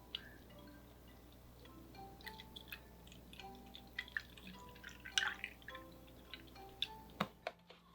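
Eating sounds: scattered wet clicks and smacks of chewing and mouth noises, heaviest about five seconds in, over soft chime-like background music.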